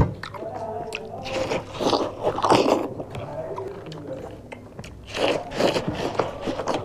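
Watermelon slices being bitten and chewed close to the microphone: a sharp click right at the start, then two spells of wet biting and chewing, about a second and a half in and again about five seconds in.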